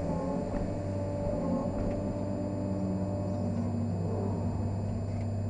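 Caterpillar 385C excavator's diesel engine and machinery running steadily, heard from inside the cab: a constant low drone with fainter higher tones that drift slightly in pitch.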